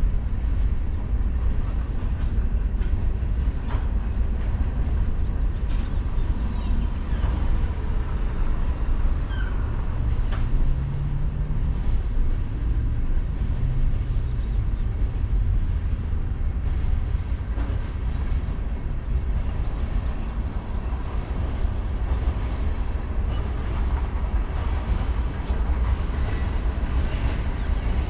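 A train running past, a steady heavy rumble with faint clicks of the wheels over the rails.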